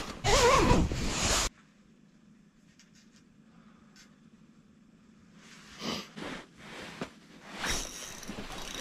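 Loud rustling of an ice shanty's fabric door, with a zipper, as someone pushes through it. It cuts off sharply after about a second and a half, leaving near quiet with a faint steady hum. A few soft knocks and rustles of handling come in the last few seconds.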